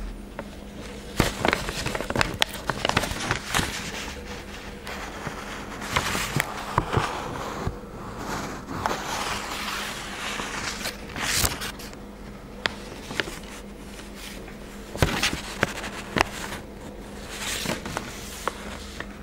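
Handling noise: irregular taps, clicks and short rustles, like paper and a sticker sheet being handled close to the microphone, over a faint steady hum.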